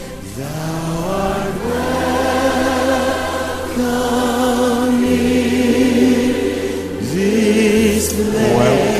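Music: voices singing long held notes with vibrato, sliding up into new notes near the start and again about seven seconds in, over a steady low accompaniment.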